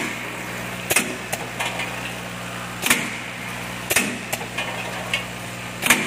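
Automatic packing machine running: its vibratory bowl feeder hums steadily while small round pieces rattle along the track, with a sharp clack from the machine every second or two.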